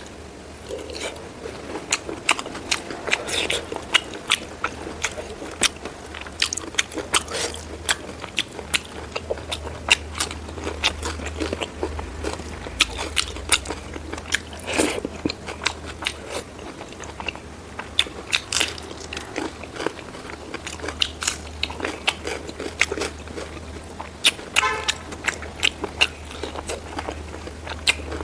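Close-miked mukbang eating of pork rib curry with rice: chewing and biting in many short, irregular clicks. A steady low hum runs underneath.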